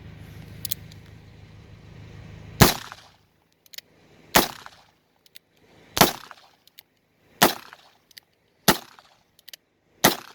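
Six shots from an 1858 Remington .44 black powder percussion revolver, fired one after another about a second and a half apart, with faint clicks between them. All six chambers fire even though the gun had been loaded and capped for over five years.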